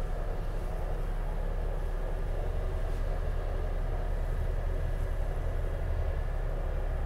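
A yacht's inboard engine running steadily, an even low drone.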